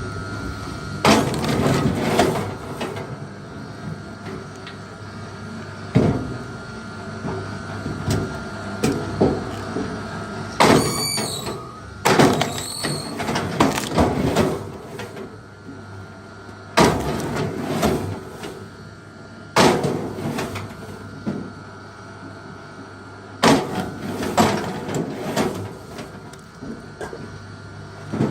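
Wooden logs knocking and clattering as they are handled, about eight heavy knocks at irregular intervals over a steady low hum. A brief squeak comes about eleven seconds in.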